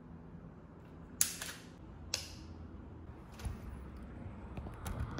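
A DSLR camera's shutter firing twice, about a second apart, each a sharp mechanical click with a short tail, then a fainter click, over a low steady hum.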